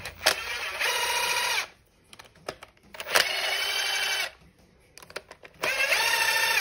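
Cordless power driver with a socket on an extension spinning out the 8mm bolts of a power steering pump's casing: three runs of a steady motor whine, each a little over a second long, with small clicks between runs as it moves from bolt to bolt.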